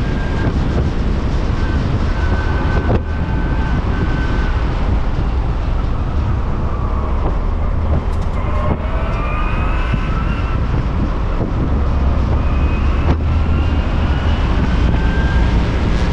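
Kyburz eRod electric roadster driving: its electric motor whines, the whine rising in pitch as the car speeds up a little past halfway and again near the end, over a steady low rumble of wind and road.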